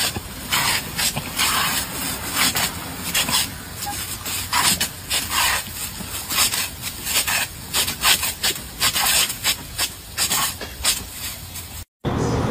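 Lawn sprinkler hissing out water in quick, irregular spurts, a few a second. The sound cuts off suddenly near the end.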